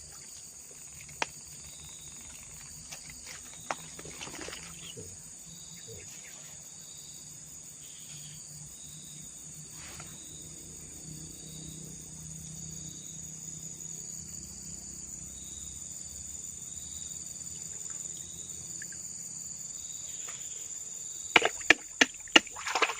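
Steady high-pitched insect chorus, with a pulsing chirp repeating under it. Several sharp clicks or knocks near the end, the loudest sounds here.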